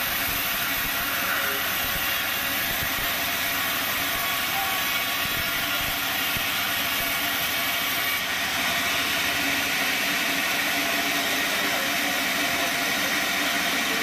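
Band sawmill running with a steady whir and hiss. The sound shifts slightly about eight seconds in.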